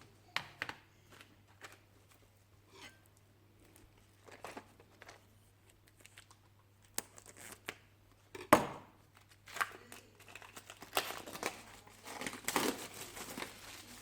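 Packaging being crinkled and torn during unboxing, in irregular rustling bursts with scattered small clicks and one sharp knock about eight and a half seconds in.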